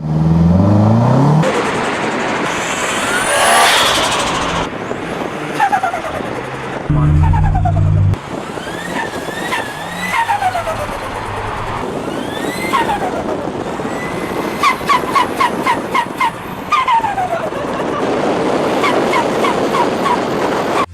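Forced-induction car engine revving again and again. With each rev a whine rises in pitch and then falls away as the throttle closes, and several revs are followed by a rapid chatter.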